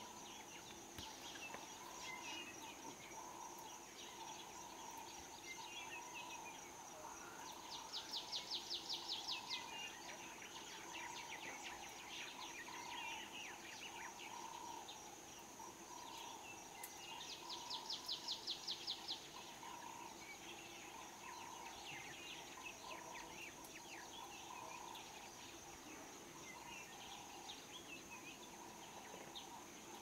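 Natural ambience of birds and insects: a steady high insect drone with birds chirping, and twice a bout of rapid, evenly repeated high calls lasting a second or two, the loudest sounds.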